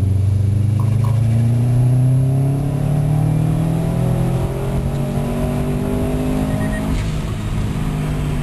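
Subaru Impreza WRX STI's turbocharged flat-four making a full-throttle pull in fourth gear from about 2,500 rpm, heard inside the cabin. The engine pitch climbs steadily, and about seven seconds in the climb ends abruptly as the pull finishes.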